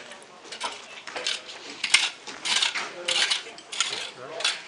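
A long-handled hand tool scraping and knocking in a wooden tub, in short strokes about every half second.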